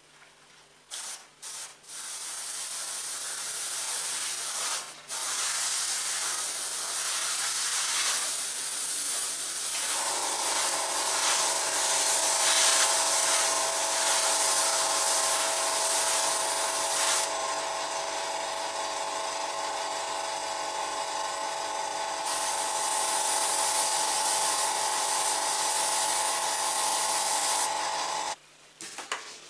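Airbrush spraying paint: a hiss of compressed air from the nozzle, in a couple of short bursts at first and then held steadily. About ten seconds in, the steady hum of the airbrush compressor's motor joins in, and both stop shortly before the end.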